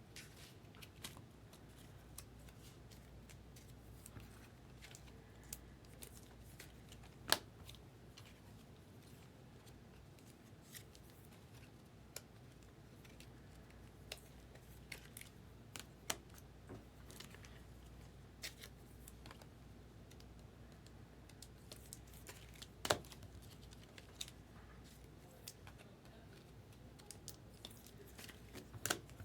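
Faint handling sounds of a trading card box and its pack being opened: scattered light clicks, ticks and rustles of cardboard and wrapper, with two sharper snaps, one about seven seconds in and one near twenty-three seconds.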